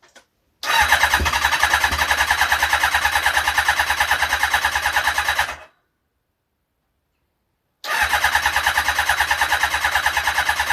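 An electric starter cranking an engine with a freshly refitted carburettor in two long bursts, a steady chug of about seven pulses a second, the second burst starting a couple of seconds after the first stops. The engine does not catch.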